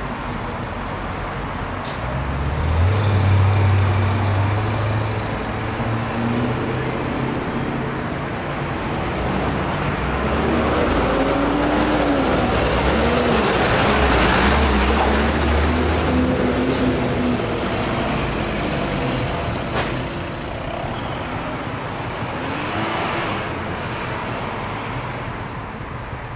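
Road traffic on a busy street. A heavy vehicle's low engine hum comes in a few seconds in, then a louder vehicle pass-by swells to a peak midway, its engine note rising and falling, and eases off towards the end.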